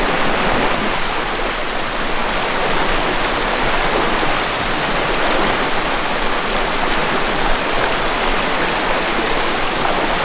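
Mountain creek rushing over rocks in small rapids: a steady, even hiss of running water.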